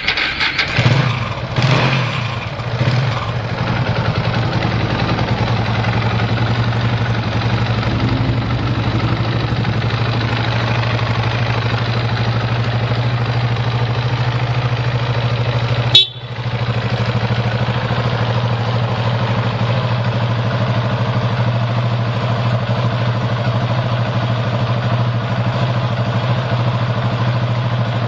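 KTM 690 Super Moto R single-cylinder engine catching on the electric starter, revving up briefly a few times in the first three seconds, then settling into a steady, even idle. One sharp click about halfway through.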